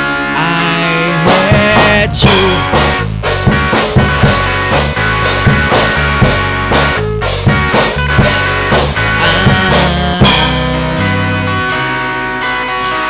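Rock band music with no vocals: guitar lines, one of them bending in pitch early on, over a steady bass and drum beat.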